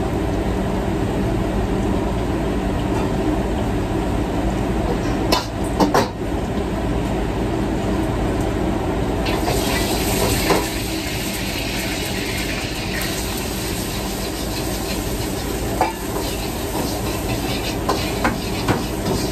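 Stir-frying at a commercial gas wok range: a steady noise from the burners and exhaust hood, with a metal ladle and spatula clanking against the wok a few times. About halfway through, food starts sizzling in the hot wok.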